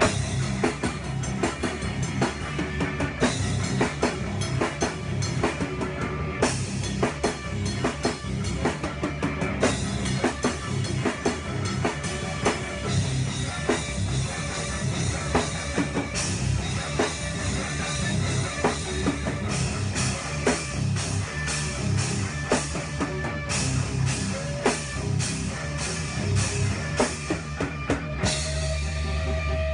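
Rock band playing loud: a drum kit with rapid kick and snare hits and cymbal crashes drives the music over electric bass and electric guitar. Near the end the drumming thins out and a low note rings on.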